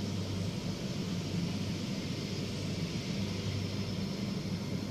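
Steady low hum with an even hiss underneath: constant background machine or room noise, with no distinct events.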